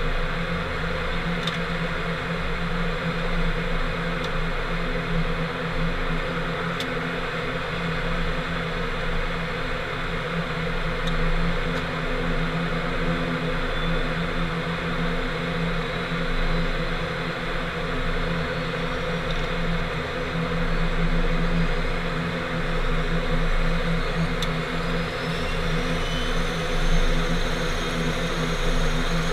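ATR 72-600's Pratt & Whitney PW127 turboprop engine running at ground idle, heard inside the cockpit as a steady hum and rushing noise, with a faint high whine rising near the end.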